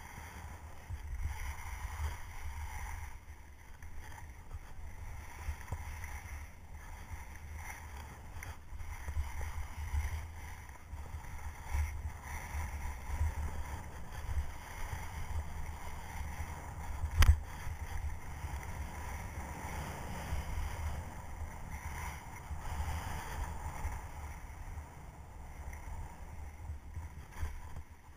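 Wind rumbling on the microphone and skis hissing and scraping over packed snow as a skier slides down the slope, with one sharp knock about seventeen seconds in.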